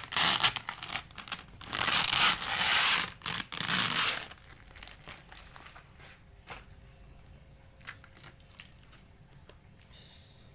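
Packaging seal being ripped open, with tape and plastic tearing and crinkling loudly for about four seconds, then only faint rustles and clicks.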